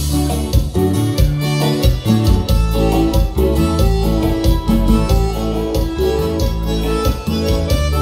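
Live band playing a chilena on keyboard and guitar over bass, with a steady dance beat.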